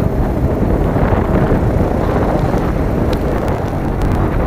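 Wind rumbling on the microphone of a moving e-bike, a loud, steady low noise that does not let up.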